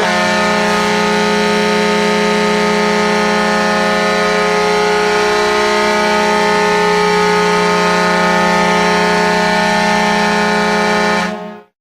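Atlanta Thrashers hockey goal horn: a deep air horn sounding several pitches at once in one long, steady blast of about eleven seconds that stops near the end.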